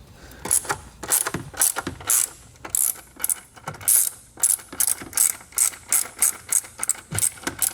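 Hand ratchet on a socket clicking in quick runs as a bolt is loosened, the pawl ticking on each back-swing.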